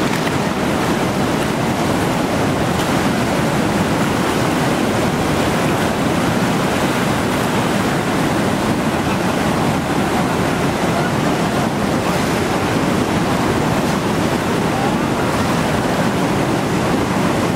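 Steady, unbroken rush of a big whitewater rapid running at high water, about 4,700 cubic feet per second.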